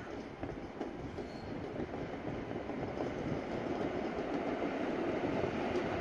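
Regional electric multiple-unit passenger train approaching on the rails, its running and wheel noise growing steadily louder as it nears.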